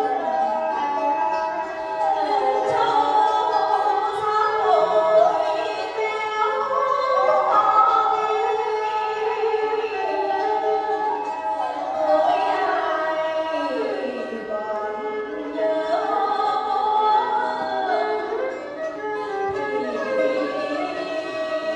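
A woman singing a Vietnamese traditional folk song in long, ornamented notes with sliding pitch, accompanied by a traditional Vietnamese instrumental ensemble.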